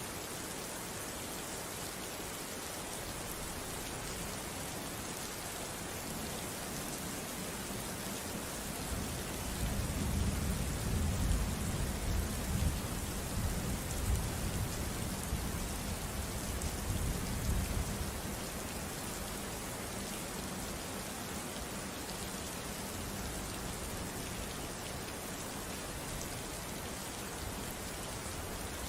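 Steady rain falling, an even hiss of drops. From about nine seconds in to about eighteen seconds in, a low rumble of thunder rolls under it, then fades.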